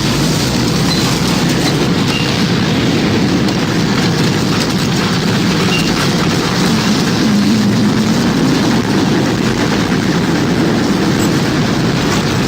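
Loud, steady roar of wind from a tornado.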